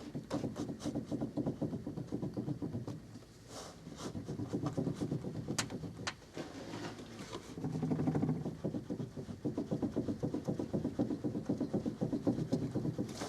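Delphi power steering gearbox on a UAZ Patriot knocking rapidly in stretches of a few seconds, over the sound of the engine running. The owner traces the knock to a worn bearing in the gearbox's front cover.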